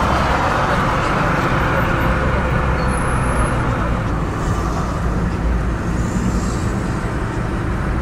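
Steady road noise inside a moving car's cabin: the engine and tyres running on the road.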